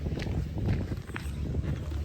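Footsteps of a person walking, about two steps a second, over a steady low rumble.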